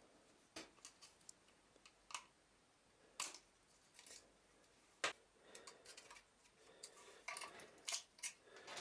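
Scattered sharp clicks and light taps of small plastic and metal parts being handled on a vacuum cleaner motor during disassembly, about a dozen of them, the loudest about five seconds in.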